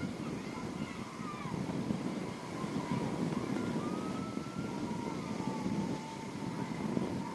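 Wind rushing and buffeting on the microphone while riding a swinging chair carousel, surging and easing as the ride swings. A faint, wavering high whine glides up and down beneath it.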